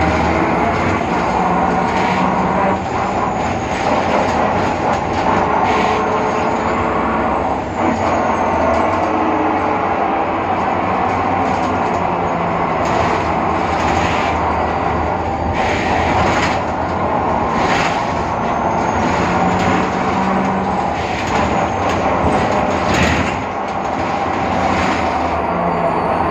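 Cabin sound of a BredaMenariniBus Avancity Plus city bus under way, with a whine from its differential that glides up and down in pitch with the bus's speed over the drone of its Deutz diesel. The differential is in poor condition. Short rattles and knocks come through now and then.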